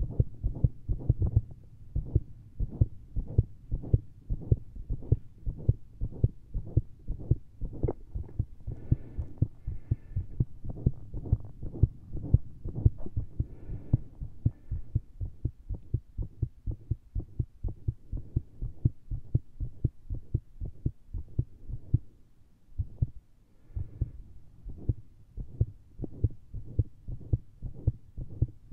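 A person's heartbeat heard through a stethoscope fitted with a lapel mic: fast, dull thumps coming very irregularly, with a pause of about a second roughly three-quarters of the way through. The heart is racing and skipping after heavy caffeine and exertion.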